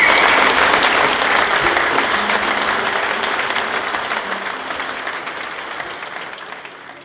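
Wedding guests applauding, a dense patter of many hands clapping that fades steadily away to nothing by the end.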